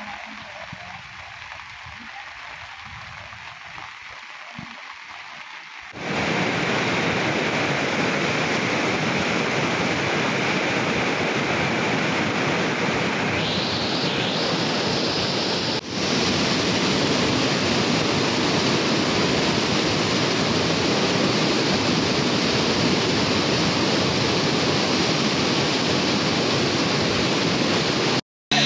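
Rapti River in flood: a loud, steady rush of turbulent floodwater, starting abruptly about six seconds in after a quieter stretch of flowing water. It dips briefly near the middle and cuts out for a moment just before the end.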